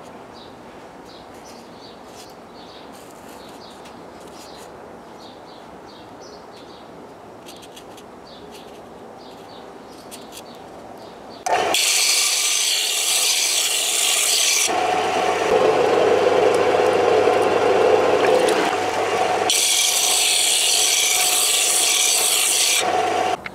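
Bench disc sander grinding a steel valve shim pressed against its abrasive disc: a loud gritty hiss that starts suddenly about halfway through, turns lower in the middle, and stops abruptly just before the end. The shim is being ground thinner to set the valve clearance.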